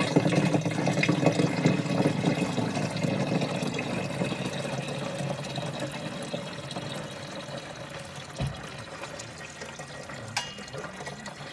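Water being poured into a truck's radiator to top off the coolant: a steady pour that slowly gets quieter. A light knock comes about eight seconds in.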